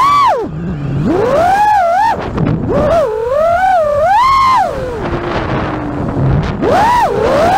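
FPV quadcopter's brushless motors and propellers whining, the pitch swooping up and down several times as the throttle is punched and chopped through flips and dives. The whine drops to a low steady tone about five seconds in, then climbs sharply again.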